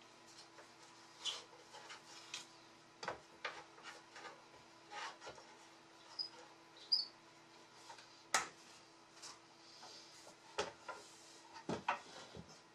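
Wooden legs of an old bentwood chair being worked into the seat frame: irregular wooden knocks and clicks, the loudest a little past the middle, with a couple of short squeaks of wood rubbing in the joints.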